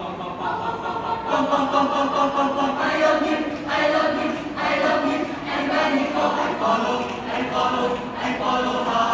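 A choir of voices singing together in harmony, in sustained phrases that change every second or so.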